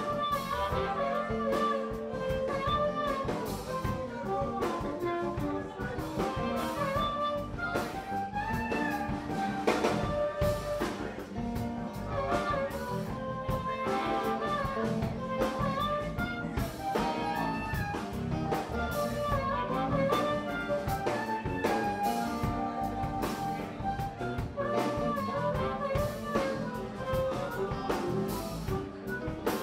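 Background instrumental music with a steady beat.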